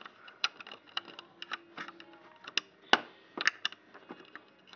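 Lego plastic pieces being handled, giving irregular small clicks and taps, with a sharper click about three seconds in.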